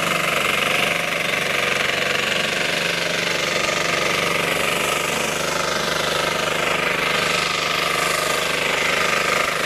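Engine of a small ploughing machine running steadily under load as it ploughs rice stubble into the field, with a fast, even chugging beat.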